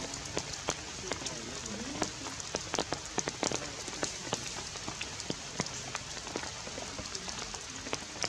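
Outdoor forest ambience: a steady hiss with many irregular light clicks and pattering.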